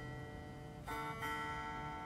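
Twangy dulcimer music: plucked notes ringing on, with fresh notes sounded twice about a second in.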